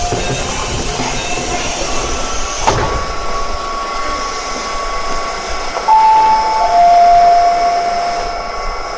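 Renewed Keio 1000 series train's VVVF inverter and traction motors whining under the rumble of the running train. About six seconds in the whine jumps louder and steps down through two lower tones, with a short knock near three seconds.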